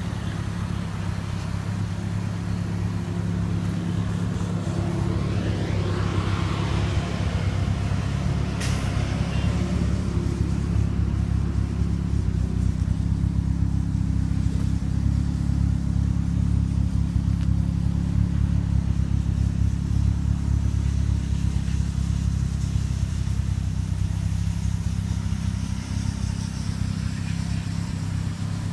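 A 1997 Honda Civic's four-cylinder engine idling steadily, with a single sharp click about nine seconds in.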